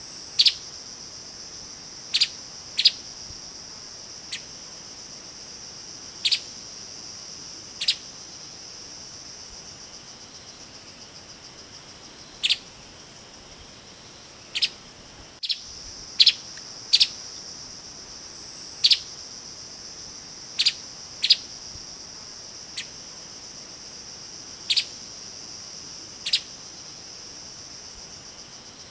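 Streaked spiderhunter giving short, sharp single calls at irregular intervals, about every one to two seconds, sometimes two close together. Under them runs a steady high-pitched insect drone.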